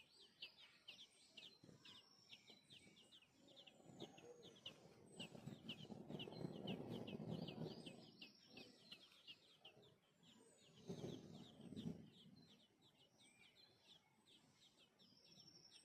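Small birds chirping: a fast, continuous run of short, high chirps, several a second. A louder, lower rough noise swells about five seconds in, fades out by eight, and comes back briefly around eleven seconds.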